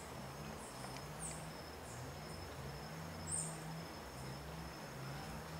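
Faint ambience of a steady high insect drone, with a few short, high bird chirps, the loudest about three and a half seconds in, over a low wavering hum.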